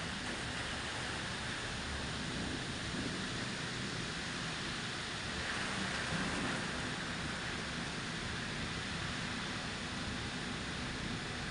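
Steady rain falling in a thunderstorm, an even hiss that swells slightly about six seconds in.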